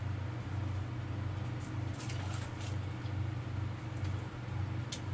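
Steady low mechanical hum with a slow, even pulsing, like a fan or motor running in a small room. A few light clicks and taps from handling a fishing line over the ice hole come through on top, around two seconds in and again near the end.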